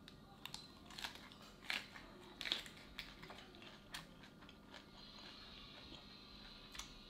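A raw lettuce leaf being bitten and chewed: a run of sharp, crisp crunches, loudest in the first few seconds, then a few scattered softer crunches as the chewing goes on.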